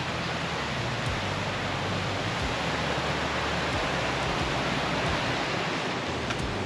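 A creek's water rushing steadily.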